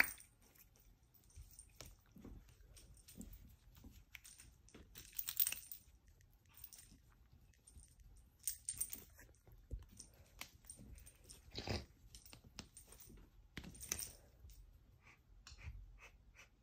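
Cat play-fighting with a person's hand on a laminate floor: irregular scuffling and rubbing, with claws and paws scrabbling and clicking on the floor, a few louder scuffles, and a run of quick small clicks near the end.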